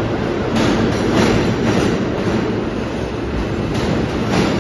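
R160A New York City subway train running past through an underground station, a steady rumble with its wheels clacking over rail joints roughly every half second.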